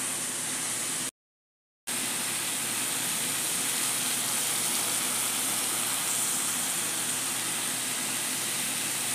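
Steady sizzling of chicken wings, sliced onion and green pepper frying in hot oil in a frying pan. The sound cuts out completely for under a second about a second in, then carries on evenly.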